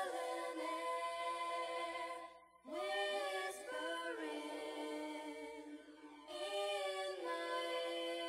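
Background music of a cappella voices singing long held chords, each phrase sliding up into place; the singing breaks off briefly twice and comes back in.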